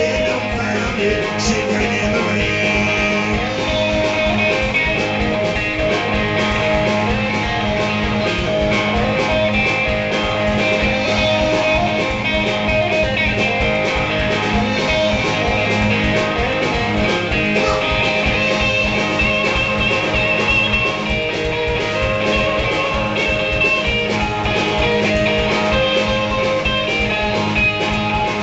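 Live blues band playing: electric guitar over a drum kit, with some singing.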